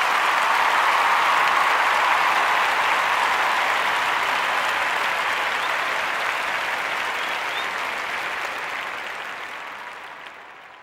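A crowd applauding: dense, even clapping that slowly fades out toward the end.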